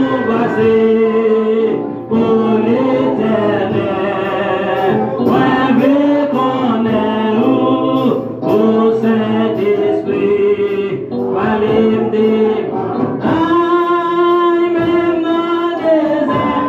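Gospel singing with instrumental backing: several voices singing a melody together.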